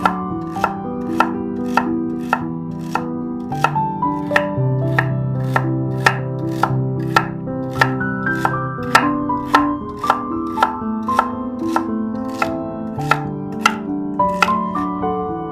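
A knife chopping on a cutting board in steady, even strokes, about two a second, over soft background piano music.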